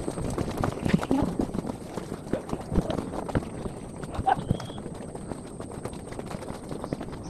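Footsteps on a dirt forest trail: an uneven run of steps and scuffs from hikers walking up the path.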